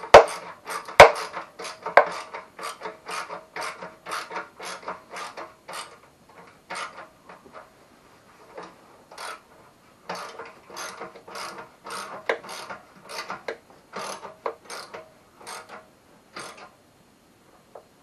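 Ratchet wrench clicking in steady strokes, about three clicks a second, as an exhaust bolt is tightened down. A few louder knocks come in the first two seconds, the clicking pauses briefly about halfway through, and it stops shortly before the end.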